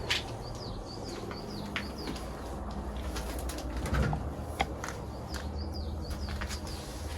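Small birds chirping in quick series of short high calls that drop in pitch, pausing for a few seconds mid-way, over a steady low rumble, with a few sharp clicks, the loudest about four seconds in.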